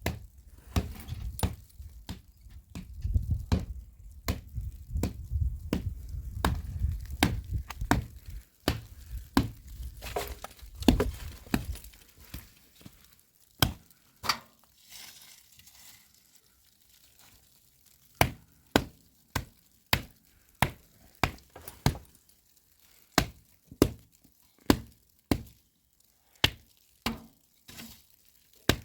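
Sharp knocks, over a low rumble in the first part, then coming singly at a steady pace of about one and a half a second in the second half.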